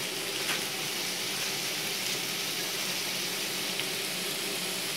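Sliced onions sizzling steadily as they fry in butter and oil in a large aluminium cooking pot.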